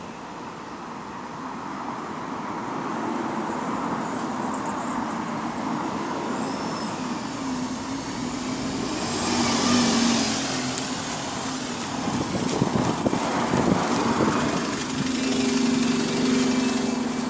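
Alexander Dennis MMC bus engine running as the bus pulls in, with a thin high turbo whine that glides up and then back down; the spotter takes the whine for a turbo leak.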